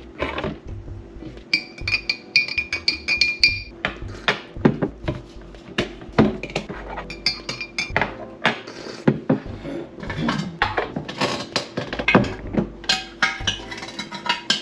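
Metal spoon stirring coffee in a glass mason-jar mug, clinking fast against the glass for about two seconds near the start. Then come scattered clinks and knocks of the spoon and jar on the countertop, over background music.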